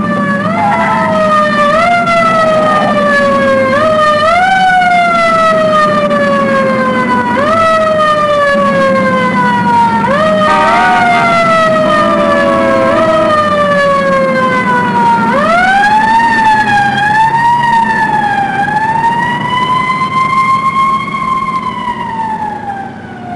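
Police emergency car's siren wailing, in repeated quick rises and slow falls, then from about 15 seconds in as longer, slower wails, over the car's engine running underneath.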